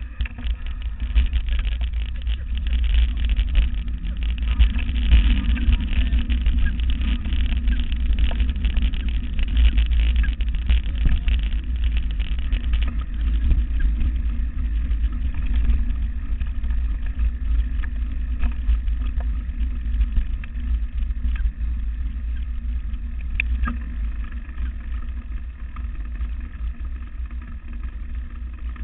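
Mountain bike rolling fast over a dirt forest trail: a steady low rumble with scattered rattles and clicks from the bike.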